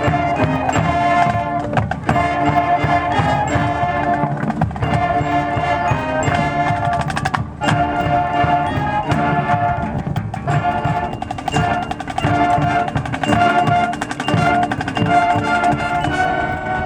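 High school marching band playing: pitched chords in short, repeated attacks over snare drum and other percussion.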